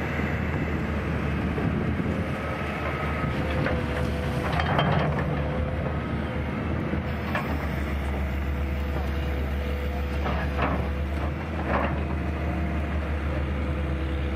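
Excavator's diesel engine running steadily, with a few short knocks of rock and metal at irregular moments.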